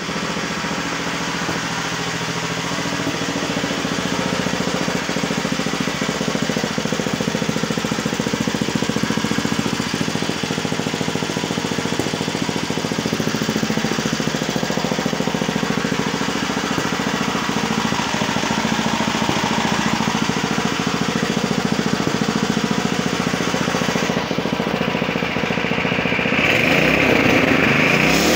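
Converted Honda GX200 single-cylinder four-stroke engine on a homemade paramotor frame, running steadily at low speed. About two seconds before the end it gets a little louder and higher.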